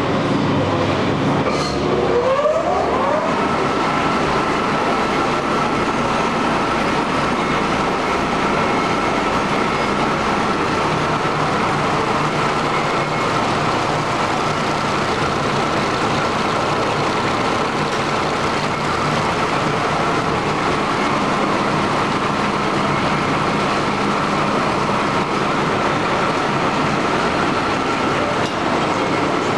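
Jagenberg folder-gluer running: steady mechanical noise of its belts, rollers and carton blanks. A motor whine rises in pitch about two to three seconds in as the machine speeds up, then holds steady.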